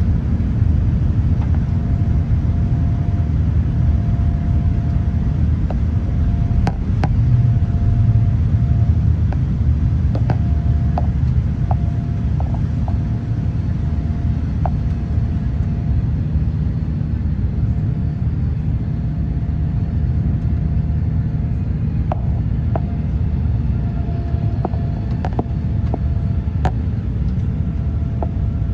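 Boeing 787-9 jet airliner heard from inside the cabin during takeoff or climb: a loud, steady deep rumble of engines and airflow. A steady mid-pitched hum comes and goes, and small clicks and rattles from the cabin fittings are scattered through it.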